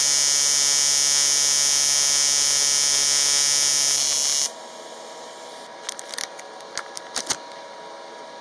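AC TIG welding arc on 1.5 mm aluminium, run by a Jasic TIG 200P AC/DC welder at 140 Hz AC frequency and 70 A: a loud, steady buzz. About four and a half seconds in it drops sharply to a much quieter buzz, with several sharp clicks near the end.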